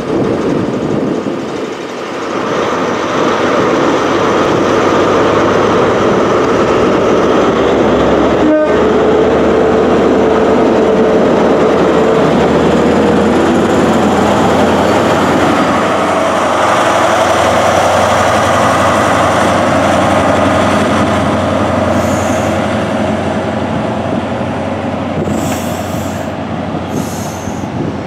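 An LNER HST's Class 43 diesel power car running loudly as it moves past, its engine noise building over the first few seconds, then the steady rumble of the Mk3 coaches rolling by on the rails.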